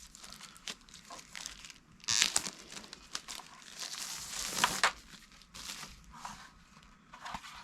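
Packaging being handled and crinkled: irregular rustling with louder crackly bursts about two seconds in and again around four to five seconds in.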